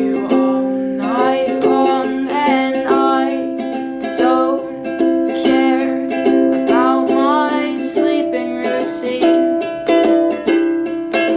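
Background music: an acoustic song with plucked strings and a sung melody.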